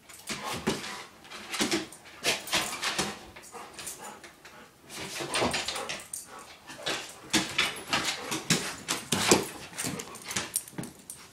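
Golden retrievers whining and whimpering in a rapid, irregular run of short bursts, an excited greeting between a puppy and a returning adult dog.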